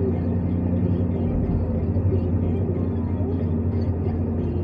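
New Holland Kobelco 215 excavator's diesel engine running with a steady low drone.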